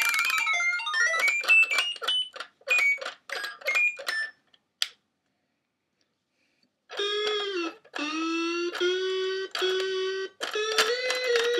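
Circuit-bent VTech Groovy Tunes Radio toy glitching: electronic melody tones stutter into choppy fragments and cut out completely for about two seconds. It comes back with long buzzy held tones that drop in pitch, then turns into fast stuttering glitch notes near the end.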